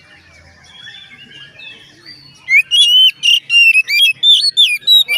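Oriental magpie-robin (kacer) singing: soft scattered notes at first, then, about two and a half seconds in, a loud, rapid run of clear whistled notes sliding up and down.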